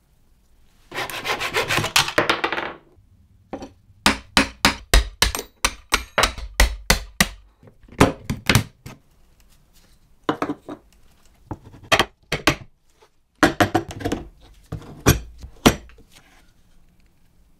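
Wooden parts of a 1920s table football game being handled: a brief rasping rub about a second in, then a long run of sharp wooden knocks and clicks in uneven clusters.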